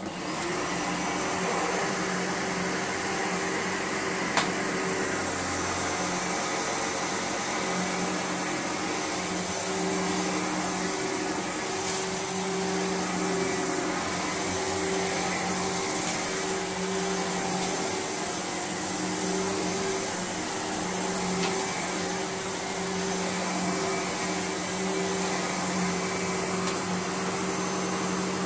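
Sebo Automatic X1 upright vacuum cleaner switching on, then running steadily with a constant hum and a high whine while it is pushed over a deep-pile rug.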